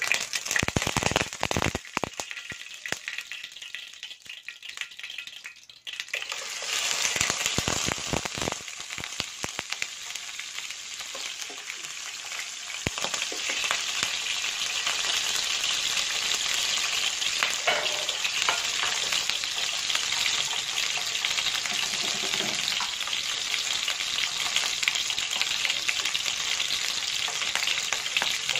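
Whole parrotfish frying in hot cooking oil in a nonstick pan. Scattered crackling at first, then about six seconds in a dense, steady sizzle sets in, which grows louder about thirteen seconds in.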